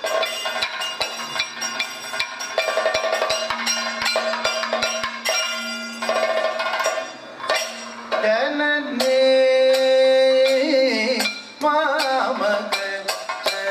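Kathakali stage music: rapid chenda drum strokes and ringing bell-metal cymbal strikes over a steady drone, thinning out about seven seconds in. A male singer then takes up a long, held, wavering sung line.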